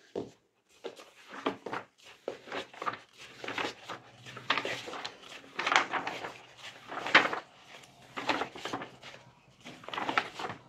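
Pages of a thick textbook being flipped quickly by hand: a run of irregular paper rustles and flaps, loudest around the middle.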